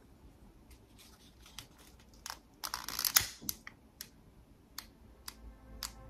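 Quiet handling noises: scattered clicks and rustles as a glass jar candle and a long-nosed butane utility lighter are picked up and the candle is lit, with a short rustle and a sharp click about three seconds in. Soft background music fades in near the end.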